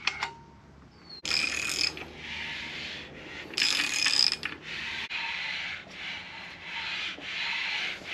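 A series of rubbing, scraping strokes, each about a second long with short breaks, beginning about a second in; some carry a thin squeal.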